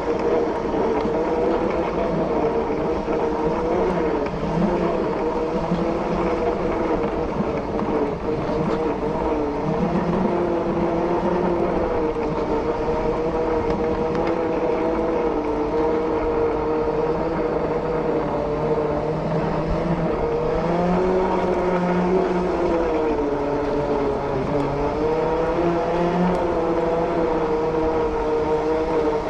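Segway x2 self-balancing scooter's electric drive motors whining steadily while riding, the pitch drifting slightly up and down with speed, over a low rumble.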